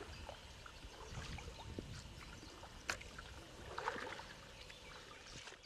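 Faint river ambience: soft water sounds lapping around a small boat, with scattered small ticks and one sharp click about three seconds in.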